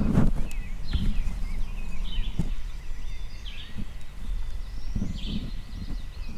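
Small songbirds chirping and warbling in short, scattered phrases over a steady low rumble, with a few soft thumps.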